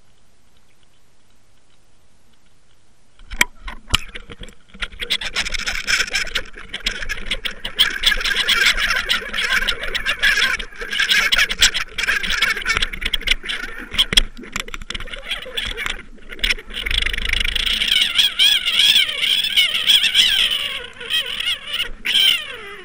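Rushing water and rattling at an underwater trolling camera as a salmon takes the spoon and thrashes on the line. The sound starts suddenly a few seconds in, carries a wavering whine, and falls away at the very end.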